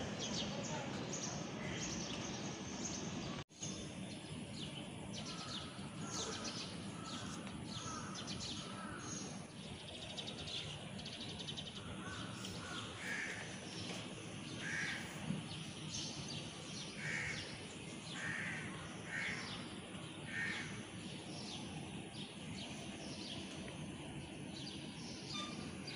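Faint outdoor bird ambience: crows cawing in short repeated calls, scattered through the middle of the stretch, over the chirping of smaller birds and a steady low background hiss.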